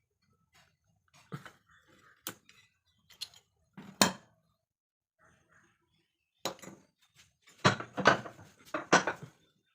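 Metal tools and parts clinking and knocking while being handled, as a string of separate knocks with a cluster of louder ones near the end.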